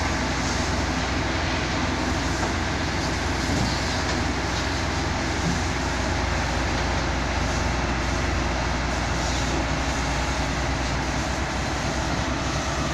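L&T-Komatsu wheeled excavator's diesel engine running steadily as the hydraulic boom lifts the bucket.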